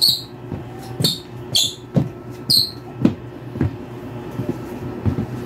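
Rubber soles of new high-top sneakers squeaking on a wooden floor as they are stepped in. Several short, high squeaks come over the first few seconds, then only soft footfalls.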